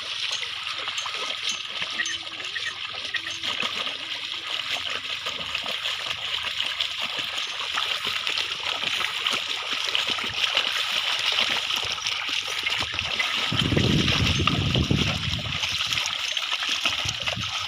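Continuous splashing and sloshing of water and mud as bullocks pull a plough through a flooded paddy field, with a louder, deeper stretch of splashing about fourteen seconds in.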